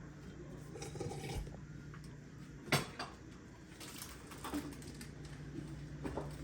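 Groceries being handled and put away: scattered light knocks and clatter, with one sharp knock a little under three seconds in. A low steady hum sits underneath.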